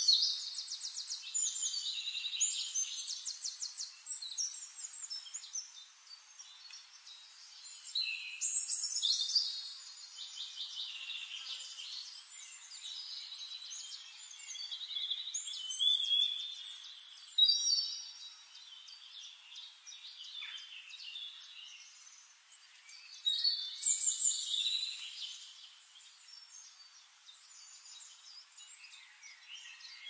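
Songbirds singing, with rapid high trills and chirping phrases coming every few seconds. The loudest phrases fall at the very start, around 8 seconds, around 16–17 seconds and around 24 seconds in.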